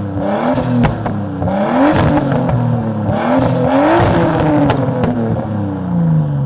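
Nissan Skyline R33's engine blipped repeatedly in neutral, its pitch rising and falling several times, with a few sharp cracks between blips. Near the end the revs sink back down toward idle. It is running on a freshly fitted Walbro 450 fuel pump and new exhaust gaskets, and it revs up freely and high.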